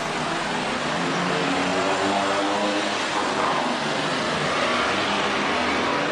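Steady road traffic noise: cars driving through a city intersection with their engines running.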